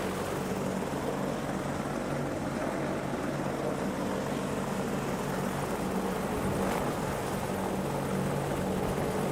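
AH-64D Apache Longbow helicopter, its twin turboshaft engines and rotors running steadily.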